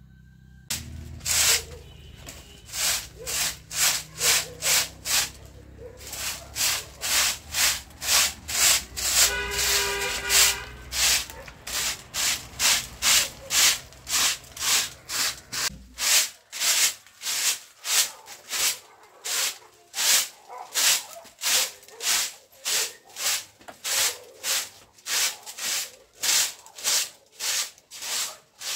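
Repeated scraping strokes at about two a second, with a short break about six seconds in. A brief high whine sounds around the middle, and a low hum underneath stops about two-thirds of the way through.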